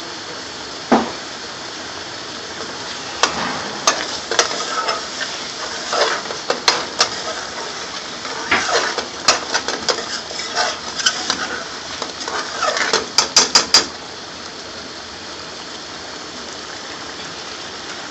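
Curry sauce sizzling in a pan, with a utensil stirring and knocking against the pan in irregular strokes from a few seconds in until about fourteen seconds, ending in a quick run of four taps.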